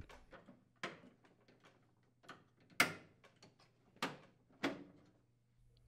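Top vent grille of a Whirlpool over-the-range microwave being pressed down and snapped into its slots in the frame: about five sharp clicks and knocks, the loudest about three seconds in.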